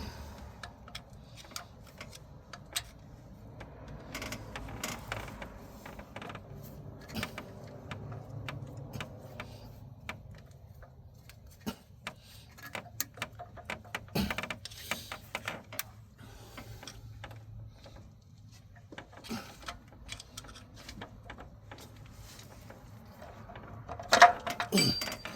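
Scattered small metallic clicks and clinks of hand tools and engine parts being handled, over a low steady hum, with a louder sound that falls in pitch near the end.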